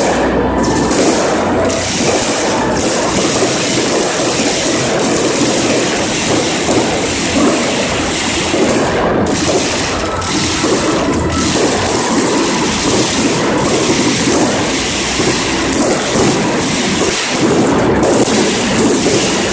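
Many fireworks going off all around: a dense, continuous crackling of firecrackers, with a few deeper thumps from larger shells.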